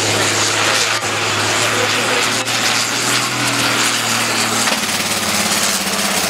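Case 2090 pulling tractor's diesel engine running flat out under load as it drags the weight sled, loud and steady; its low drone changes to a higher, rougher note near the end. This is the run on which the engine was damaged.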